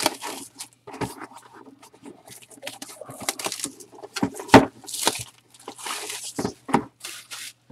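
Plastic shrink wrap being torn and peeled off a cardboard box, crinkling and rustling in irregular bursts, with a single knock a little past halfway.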